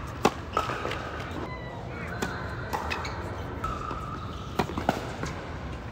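Tennis racket striking the ball on a serve, twice: a sharp pop about a quarter second in and another about four and a half seconds in, each followed shortly by a fainter knock.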